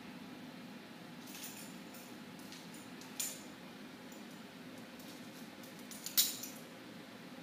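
A small dog's metal collar tag clinking and its claws tapping on a hardwood floor as it pounces, in a few short clinks: a sharp one about three seconds in and the loudest about six seconds in. A steady low hum runs underneath.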